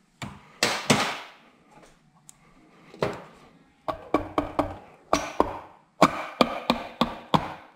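Orange mallet knocking a metal cover home on a Suzuki RGV250 engine case. It strikes sharply about a dozen-plus times: a few spaced-out knocks, then a quicker run of taps from about four seconds in.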